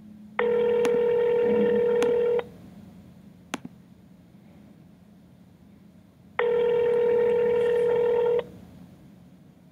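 Telephone ringback tone of an outgoing call: two rings, each about two seconds long with about four seconds between them. The call is ringing out with nobody picking up.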